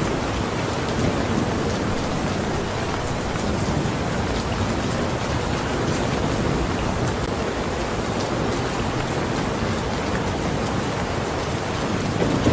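Steady rain falling, an even hiss with scattered individual drops ticking. A low rumble, likely thunder, swells right at the end.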